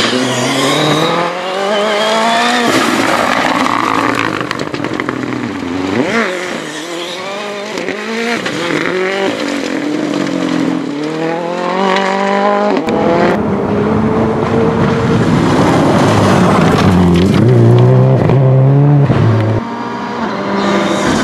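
Rally cars at full throttle, their engines revving up through the gears again and again, the pitch climbing and dropping back at each shift. About 13 s in the sound changes abruptly to a heavier, lower engine note that swells as it comes closer.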